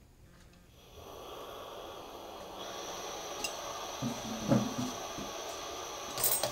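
Glassworking bench torch hissing as its gas and oxygen are turned up, the flame going from a soft yellow to a sharp blue-white point. The hiss starts about a second in and grows louder and brighter a couple of seconds later, with a few light knocks near the end.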